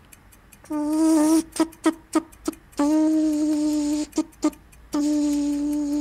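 A person imitating a photocopier with their voice: a steady hummed tone held three times, each for a second or more, with several short clicks and blips in the gaps between.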